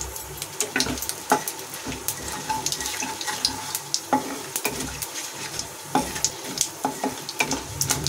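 Cumin seeds and dried red chillies sizzling and crackling in hot oil in a nonstick kadhai, stirred with a wooden spatula that knocks and scrapes against the pan. Many sharp pops break the steady sizzle.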